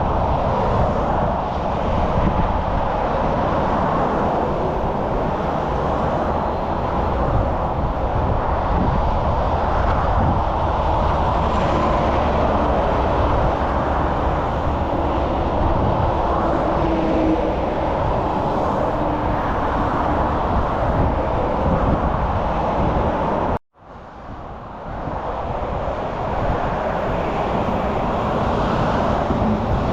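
Steady road traffic noise, a continuous rumble and rush of vehicles. About 24 s in the sound cuts out almost completely for a moment and then comes back over a couple of seconds.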